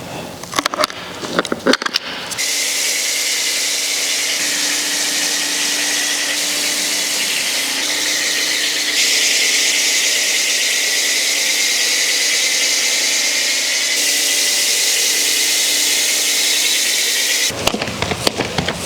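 Pressure washer spraying the car for about fifteen seconds: a steady loud hiss of spray with the hum of the pump motor underneath, a little louder about halfway through. Short clattering sounds come just before it starts and as it stops.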